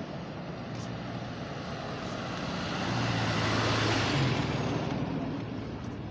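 A road vehicle driving past, its engine and tyre noise swelling to a peak about four seconds in and then fading away.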